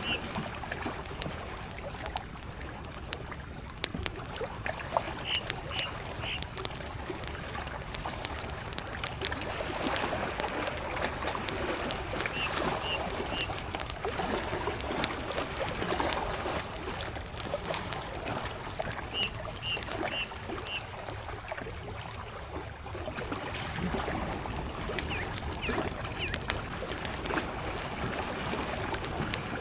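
Campfire crackling with many small snaps, over soft lapping of lake water. A bird gives short high notes in quick runs of three or four, repeating every several seconds.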